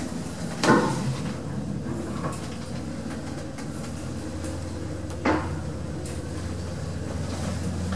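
Marryat & Scott passenger lift car travelling upward: a steady low running hum, with a sharp clunk about a second in and another about five seconds in.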